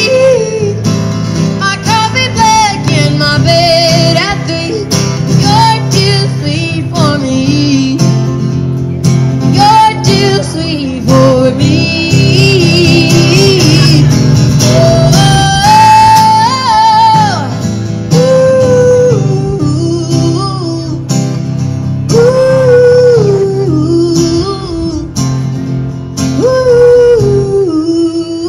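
A woman singing a melody into a microphone while strumming an acoustic guitar.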